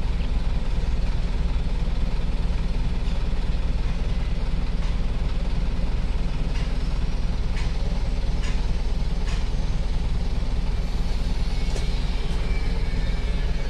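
Isuzu 4HK1 four-cylinder turbo-diesel truck engine idling steadily, with a few faint clicks over it.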